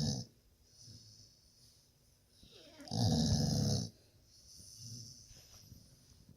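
Snoring: one loud snore about a second long near the middle, with softer breaths before and after it, the end of the previous snore just at the start.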